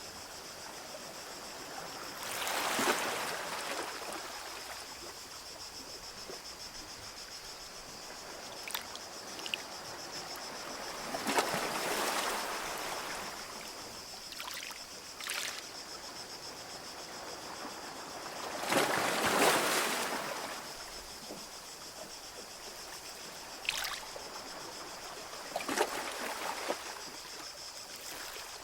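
Small ocean waves breaking and washing up the shore four times, about every seven to eight seconds, with short splashes in between over a steady high-pitched hiss.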